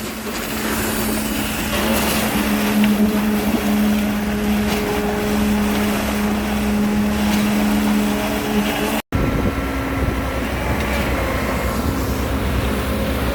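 Heavy vehicle engine running steadily with an even hum. The sound drops out for a moment about nine seconds in, then the hum resumes at a slightly higher pitch.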